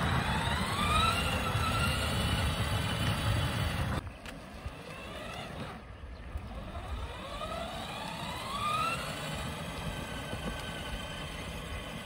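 Whine of a child's battery-powered ride-on toy car's electric drive motors and gearboxes, rising in pitch as the car speeds up and then holding steady. It happens twice, at the start and again about seven seconds in, over a low rumble that is strongest in the first few seconds.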